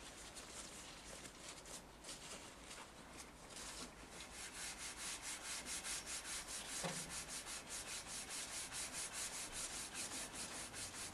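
Hand rubbing cutting compound onto a motorcycle exhaust downpipe, a hissing scrape of back-and-forth strokes. The strokes are irregular at first, then settle about four seconds in into a brisk, even rhythm of roughly five a second.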